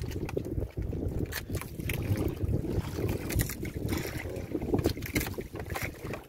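Wind buffeting the microphone over sea water sloshing against the side of a small wooden fishing boat, with scattered small knocks.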